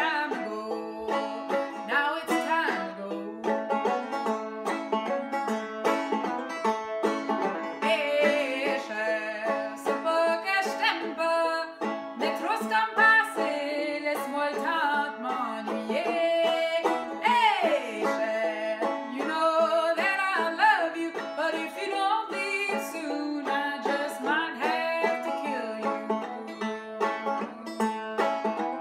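A banjo played with a woman singing over it: a folk song performed live.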